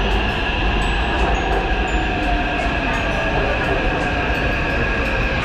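Metro train pulling into an underground platform: a loud, steady rumble with a whine that eases slightly lower.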